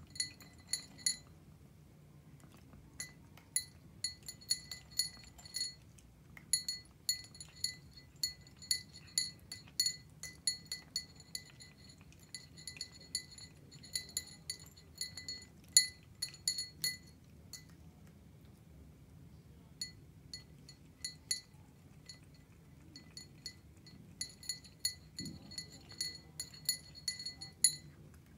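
A cat eating dry kibble from a small glass bowl, with rapid small ringing clinks in irregular runs as it eats. The clinking thins out for a couple of seconds past the middle, then picks up again.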